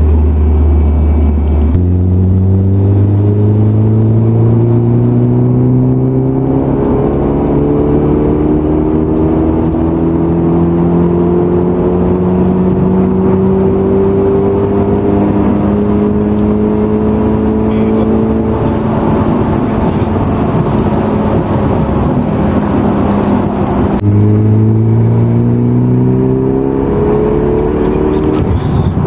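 Turbocharged four-cylinder engine of a Lancer-based Evo X pulling under load from inside the cabin during a road tuning run. Its pitch rises slowly for about sixteen seconds and then holds level. Near the end it drops sharply at a gear change and climbs again.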